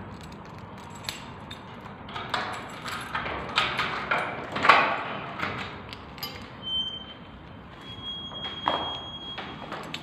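Knocks and clatter from a sliding glass door being moved and passed through, loudest about two-thirds of the way through that stretch. In the last few seconds a high, thin, steady tone sounds.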